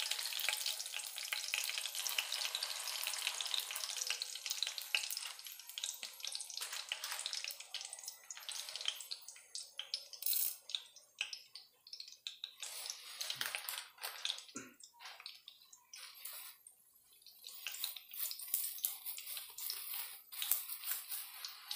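Hot oil sizzling and crackling in a kadai around a tempering of mustard seeds, curry leaves, asafoetida and fenugreek seeds. It is dense at first, thins to scattered crackles after several seconds, and picks up again near the end.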